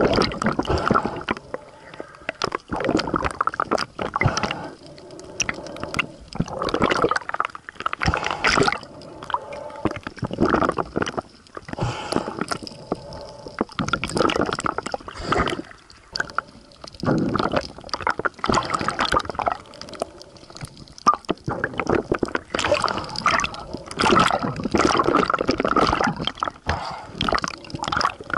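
Water gurgling and sloshing heard underwater, coming in uneven surges every second or two.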